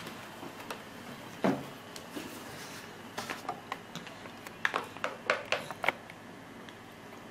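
A dull thump about one and a half seconds in, then a run of sharp clicks and light knocks, several in quick succession near the middle.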